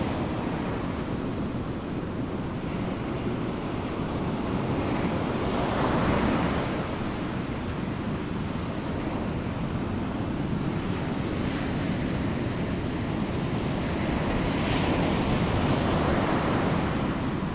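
Surf and wind, a steady rushing noise that swells twice, about six seconds in and again near the end.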